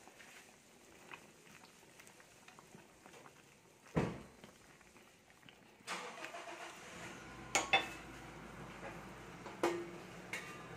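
Metal spatula knocking and scraping against an aluminium cooking pot while stirring a simmering soup, with a sharp knock about four seconds in and a few clicks later on.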